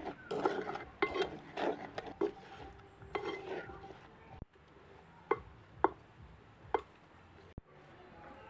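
Kitchen utensils clinking and clattering against pots and dishes: a busy run of ringing knocks at first, then three separate sharp clinks in the second half.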